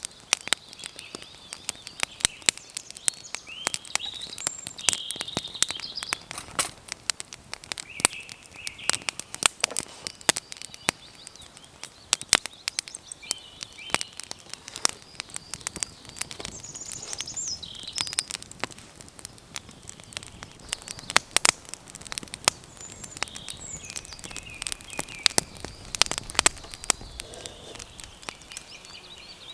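Wood fire crackling, with frequent sharp pops throughout, while small birds chirp and sing.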